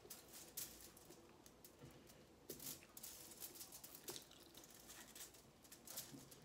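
Faint, scattered crinkles and taps of fingers pressing and gathering rice on a sheet of aluminium foil, over near silence.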